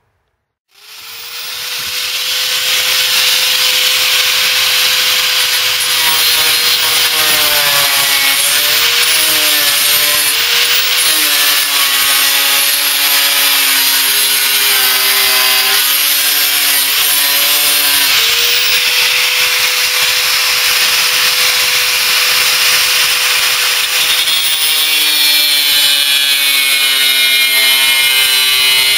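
Angle grinder with a thin cutting disc slicing through steel sheet, starting up about a second in and then running continuously. Its motor whine sags in pitch as the disc bites into the cut and climbs back as it is eased off, several times.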